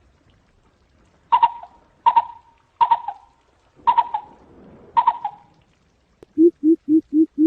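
Coucal calling: five sharp, higher-pitched calls spaced under a second apart, then, a little after six seconds in, a fast run of deep hoots at about four a second.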